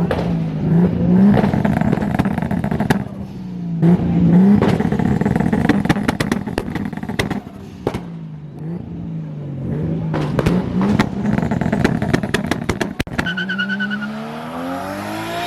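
Car engine revved over and over, its pitch climbing and dropping several times, with many sharp crackles. Near the end a car accelerates past, its pitch rising and then falling away.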